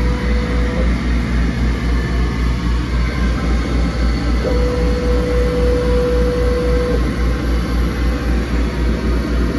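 Boss laser cutter and its running equipment humming low, pulsing about four times a second, with a steady whine for about two and a half seconds in the middle as the machine moves while the job is framed.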